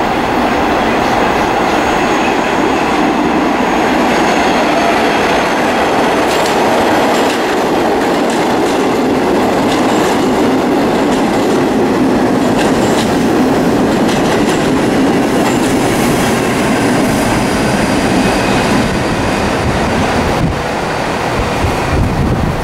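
Vintage New York City subway museum train running through the station without stopping. A steady rumble of steel wheels on rail, with clicks over the rail joints and a thin, high wheel squeal at times.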